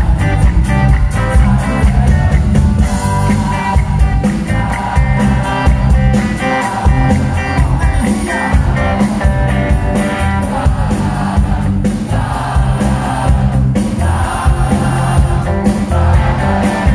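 Live rock band playing: a male lead singer over electric guitar and drums.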